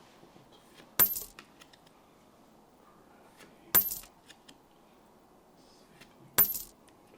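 Pokémon trading cards being handled one at a time during a pack opening: three sharp clacks about two and a half seconds apart, each followed by a brief rattle, with fainter ticks between.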